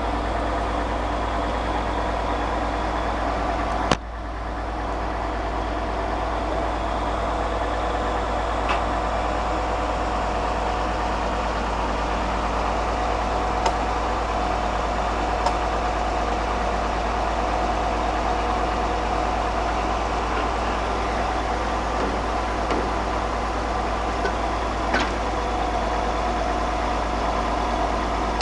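Diesel engine of a truck-mounted core drilling rig running steadily at constant speed. There is a sharp knock about four seconds in, and a few faint clicks later on.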